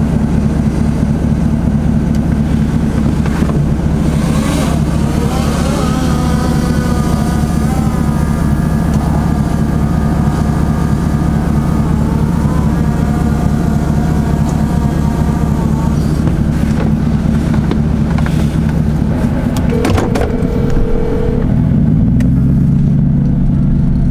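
A motor vehicle's engine running steadily with a low, even drone; near the end its tone steps up slightly.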